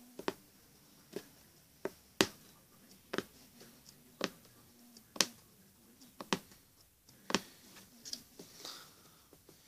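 Punch needle (magic embroidery needle) piercing fabric stretched taut in an embroidery hoop, a sharp tick with each stroke, about one a second, some strokes coming in quick pairs.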